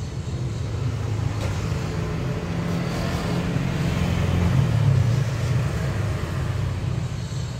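Engine of a motor vehicle passing in the street, a low rumble that grows louder to a peak about five seconds in and then eases off, over general traffic noise.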